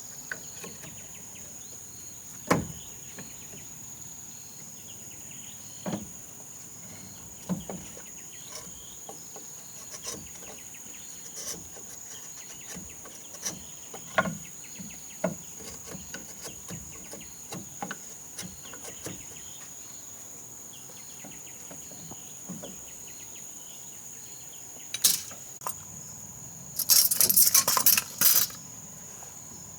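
Steady high-pitched drone of insects, with scattered single knocks and clinks of wood and tools being handled. Near the end comes a loud burst of rapid scraping strokes lasting about a second and a half.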